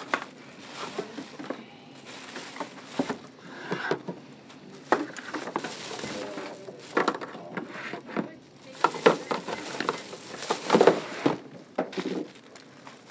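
Irregular clatter and knocks of groceries and plastic bags being handled at a store checkout, with bits of murmured voices.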